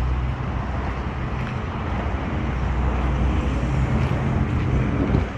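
Steady low rumble of highway traffic.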